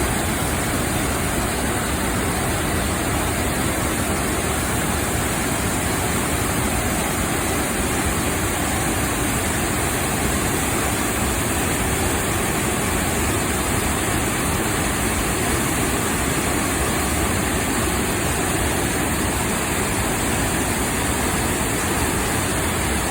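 A three-tiered waterfall rushing, loud and unbroken.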